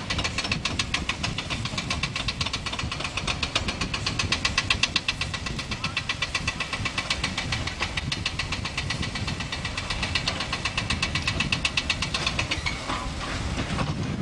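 Boeing 747's four jet engines running at takeoff thrust as the airliner lifts off and climbs away: a continuous jet roar with a rapid, even pulsing through it that eases near the end.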